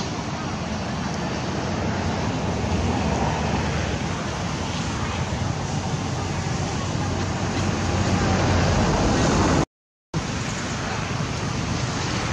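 Steady low rumble and hiss of outdoor background noise with a humming undertone that grows louder about eight seconds in, broken by a short gap of silence near the end.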